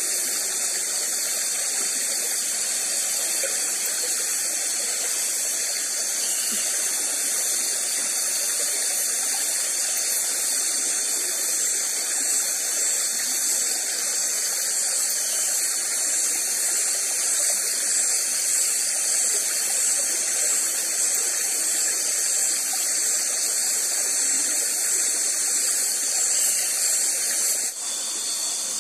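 Steady night chorus of insects, a high shrill hiss with a faint pulsing in it. It changes abruptly to a different steady background about a second before the end.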